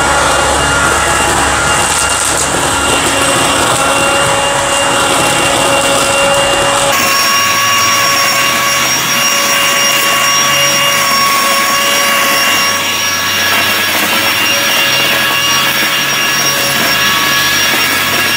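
Kaltmann Titanium 40V brushless leaf vacuum running steadily, a high whine over rushing air, as it sucks up dry leaves from the grass. About seven seconds in the whine jumps higher in pitch, because the footage is played at double speed.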